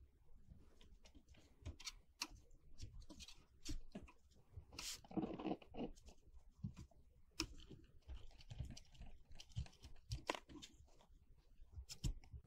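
Old crumbled foot pads being picked and scraped off a mixer's metal base panel with a small pointed tool: scattered faint clicks and short scratchy scrapes, the loudest about five seconds in. Near the end a hand brushes the crumbs across the panel.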